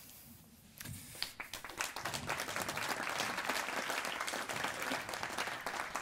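Audience applauding, starting about a second in and swelling over the next two seconds into steady clapping.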